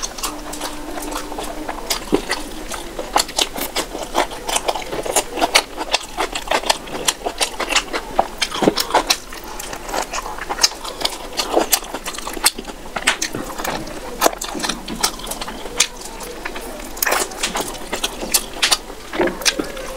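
Close-miked eating of chicken curry and rice: chewing and lip smacking, a fast, irregular run of sharp mouth clicks and smacks.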